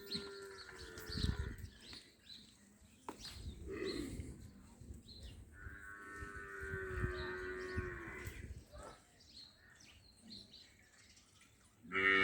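Gir cattle mooing: one long low moo fading out about a second and a half in, then a second long moo of about three seconds starting near the middle.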